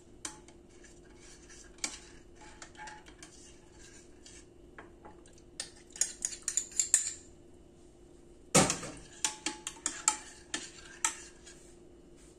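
Metal spoon clinking and tapping against a glass bowl while coffee is stirred into warm milk: scattered light taps, a sharp knock about eight and a half seconds in, then a run of quicker clinks.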